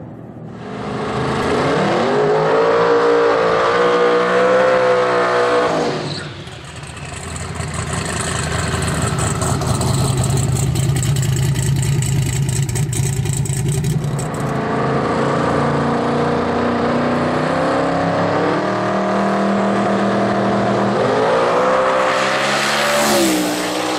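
Twin-turbo V8 in a Mazda RX3 drag car: the engine revs up and holds high for a few seconds. It then runs through a burnout of several seconds, a steady low engine note under a hiss of spinning tyres with crackling. Near the end the revs build on the line and the car launches hard, the engine note climbing sharply as it pulls away.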